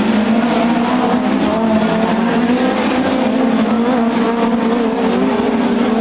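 A pack of 2-litre BTCC touring cars, led by BMW 3 Series saloons, racing past at high revs. Several engine notes overlap and waver steadily.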